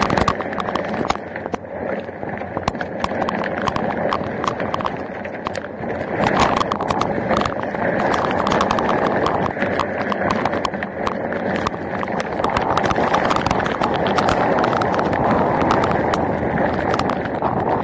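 Heavy rain pelting a 360 camera: a steady rushing hiss with dense, irregular sharp taps of drops striking the camera.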